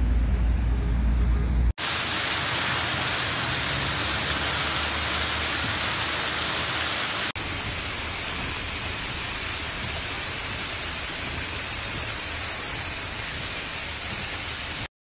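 Flash-flood water rushing through a wadi with wind rumbling on the microphone, then, after a sudden cut, the steady loud rush of a rain-fed waterfall pouring down a rock face. Another abrupt cut comes about seven seconds in, and the sound stops suddenly just before the end.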